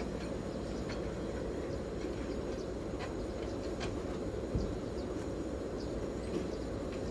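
Steady low outdoor rumble, with a few faint clicks and one dull thud about four and a half seconds in, as the panels of an aluminium four-panel folding door are swung and folded shut.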